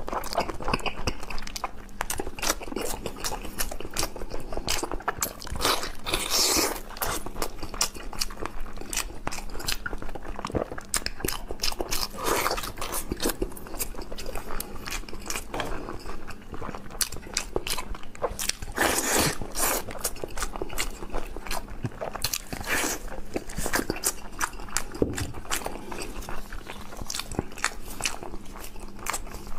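Chewing and biting of boiled pork skin rolls: wet, sticky mouth sounds with many small clicks and a few louder bites.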